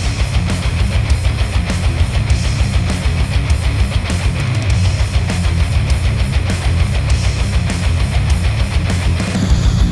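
Heavy rock music with driving electric guitar and drums, played through a Sennheiser headphone and picked up by microphones inside the earcup.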